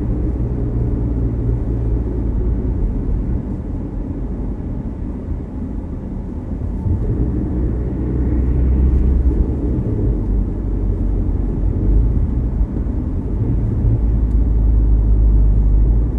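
Mazda CX-60 on the move, a steady low rumble that swells in the middle and again near the end. Somewhere in it is an odd noise that the owner cannot trace.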